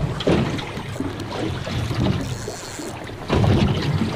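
Wind buffeting the microphone over water lapping and slapping against a small aluminium boat's hull, with a louder rush from about three seconds in.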